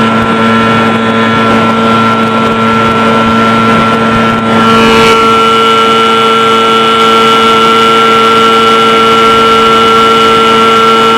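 15 HP Evinrude two-stroke outboard motor running steadily at speed, pushing a jon boat, with a constant engine note. About four and a half seconds in it dips briefly, then comes back a little louder with a shifted tone.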